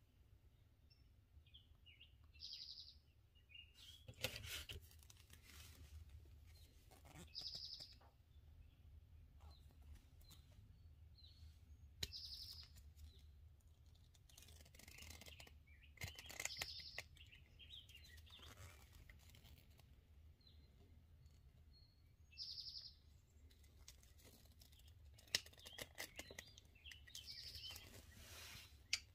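Faint clicks and rustling of hands working a wire and crimping pliers closing a terminal onto it. A small bird chirps briefly, about every five seconds.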